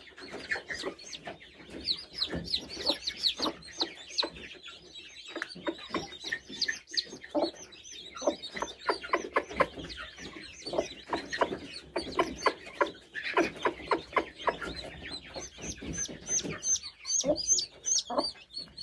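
Newly hatched chicks peeping constantly in high, falling chirps, mixed with the low, repeated clucking of their broody Italian layer hen.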